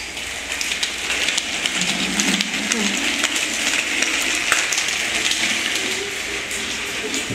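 Small plastic wheels of a toy doll stroller rolling and rattling over a tiled floor as it is pushed along, a steady rumbling rattle with many small clicks.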